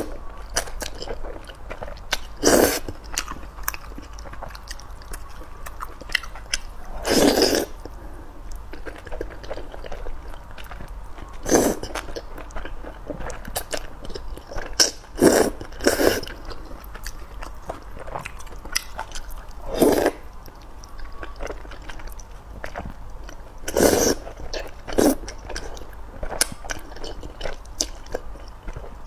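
A person slurping thick noodles in loud bursts every few seconds, with wet chewing between, heard close up.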